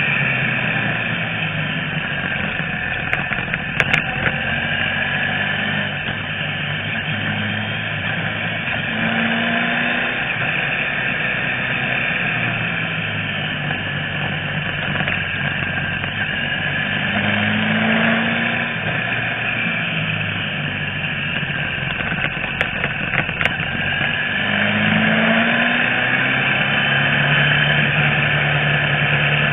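Motorcycle engine running under way with heavy wind rush over the microphone; the engine pitch rises briefly three times as it accelerates out of bends. A few short clicks sound about four seconds in and again about three quarters through.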